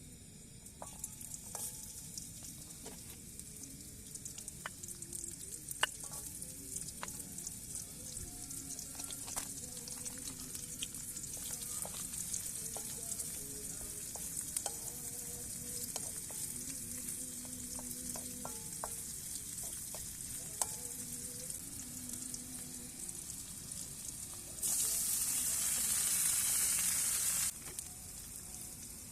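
Food frying, sizzling steadily with scattered pops and crackles; the sizzle grows much louder for about three seconds near the end.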